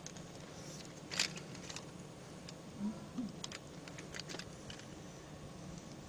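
A faint steady hum with a handful of short, sharp clicks scattered through it, the loudest about a second in.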